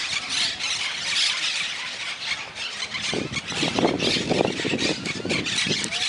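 A flock of monk parakeets screeching at their communal stick nest: a dense, unbroken chorus of shrill, harsh calls. From about three seconds in, a rough lower rumbling noise joins underneath.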